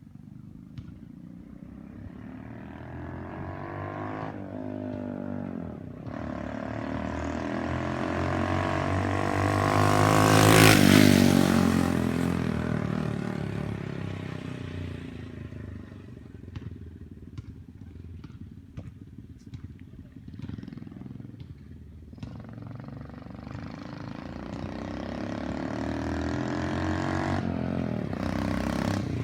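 90cc pit-bike engine on a motorized bicycle running under load. It grows louder as it approaches, passes close about ten seconds in with its pitch dropping, and fades away. It then grows louder again as it comes back near the end.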